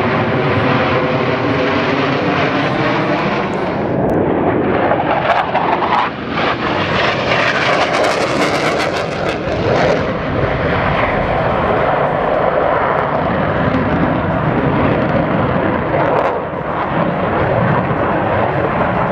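Blue Angels F/A-18 Hornet jet engines running loud throughout, with the noise brightest and harshest from about six to ten seconds in.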